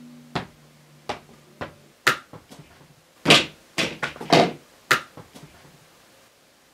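A small ball bouncing and thudding about a dozen times at uneven intervals, with two longer, louder hits around the middle, then stopping about a second before the end.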